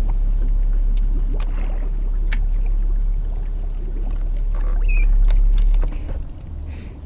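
Wind buffeting the microphone on an open boat deck as a heavy low rumble that drops off about six seconds in, with scattered light clicks and taps over it.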